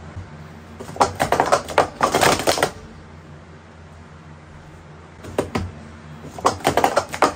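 Wooden speed-stacking cups clattering as they are rapidly stacked up and down in sport-stacking sequences, a quick run of sharp clicks. One flurry about a second in, a short one past the middle, and another starting near the end.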